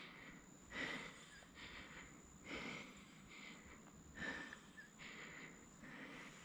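A person breathing quickly and faintly, about one breath a second, over a faint steady high whine.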